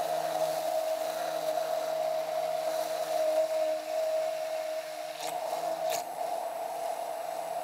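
Handheld immersion blender running steadily with a constant motor whine, its blade whipping oil, vinegar and Dijon mustard into an emulsified vinaigrette. A few brief clicks come about five and six seconds in.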